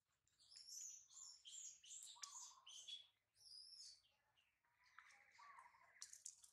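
Faint bird chirps: a quick run of short high calls over the first few seconds, then a steadier, lower trill about five seconds in.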